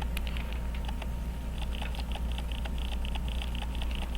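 Small, light metal clicks from hand pullers being worked on a pocket watch's hands, coming quickly from about a second and a half in, over a steady low electrical hum.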